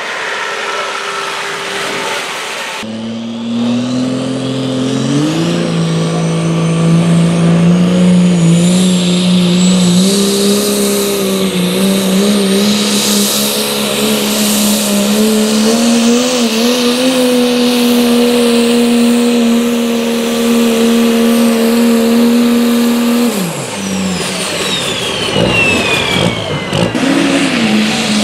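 Turbocharged Dodge Ram diesel pickup pulling a sled. The engine climbs to high revs and holds steady under load, with a rising turbo whistle, then drops off about 23 seconds in as the turbo whistle falls away.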